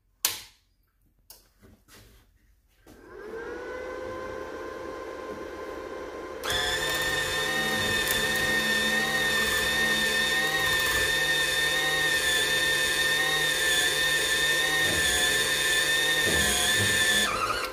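Titanium Flux 125 welder switched on, its cooling fan spinning up about three seconds in, then the wire-feed motor running with a steady whine for about ten seconds as it drives the new flux-core wire through the gun liner. The whine stops shortly before the end, while the fan keeps running.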